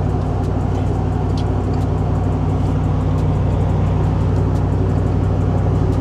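Porsche Cayenne driving, heard from inside the cabin: a steady low engine and road drone, with a few faint scattered ticks from a loose rattle in the cabin.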